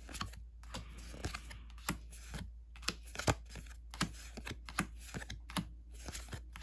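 Pokémon trading cards being handled one by one, slid off a freshly opened pack's stack: a run of short, irregular clicks and flicks of card stock, a few each second.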